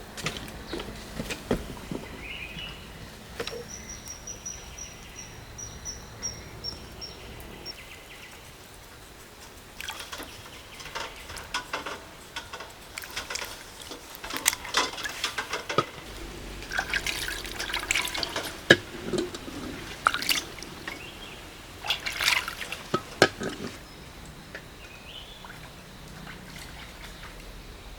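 Water splashing and trickling, with many irregular clicks and knocks, thickest through the middle stretch.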